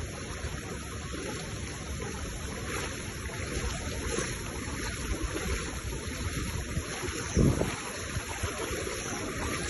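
Steady rushing noise of storm wind and floodwater, with a low thump about seven and a half seconds in.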